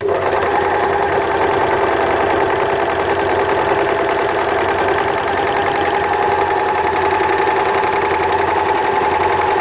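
W6 N454D overlocker stitching at speed, sewing a test seam of decorative overcast edging. It starts abruptly and runs as a steady, even mechanical hum with fast fine stitching chatter.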